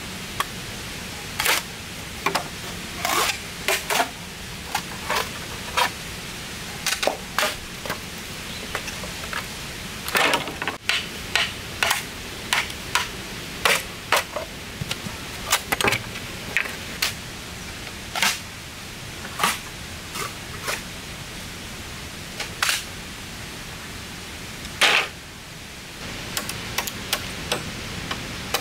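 Irregular sharp knocks and snaps, one or two a second, over a steady hiss; one louder knock comes near the end.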